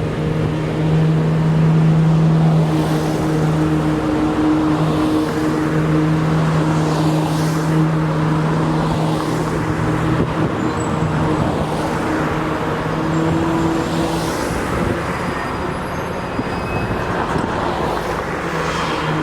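Road traffic, with cars passing one after another every couple of seconds. Under it runs a steady engine hum that cuts off about fourteen seconds in.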